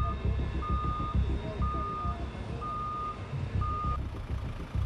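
Heavy mobile crane's warning beeper sounding a steady single-pitched beep about once a second, each beep about half a second long, over the low running of a heavy engine. The beeping stops about four seconds in while the engine continues.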